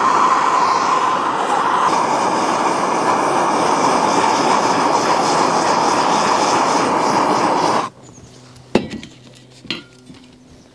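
Handheld gas torch burning steadily as its flame heats the edge of a drilled hole in a plastic drum. The flame cuts off suddenly about eight seconds in, followed by two light knocks.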